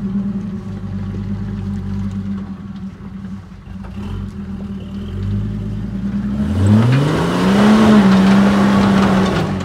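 Lifted Jeep Comanche pickup's engine idling steadily, then revving up about six and a half seconds in as the truck climbs a steep dirt bank. It is held at high revs to near the end, with a rush of noise from the tyres and loose dirt.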